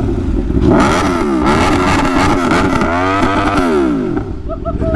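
Kawasaki ZX-10R inline-four with an Akrapovic exhaust revved hard at standstill: several throttle blips, pitch rising and falling, the longest sweep near the end before it drops back to a steady idle. Onlookers call its sound smooth.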